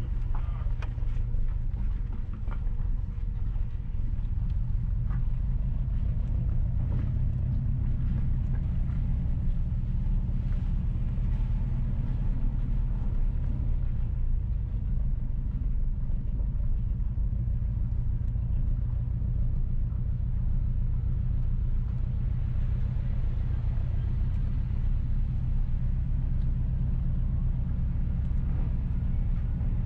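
Car driving slowly, heard from inside: a steady low rumble of engine and tyres on the road.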